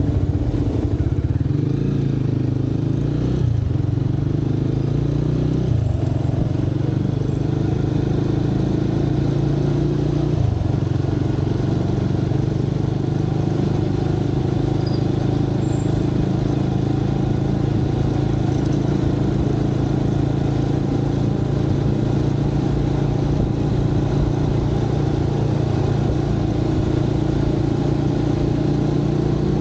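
Motorcycle engine running, heard from the rider's camera. Its pitch shifts a few times in the first ten seconds, then holds steady.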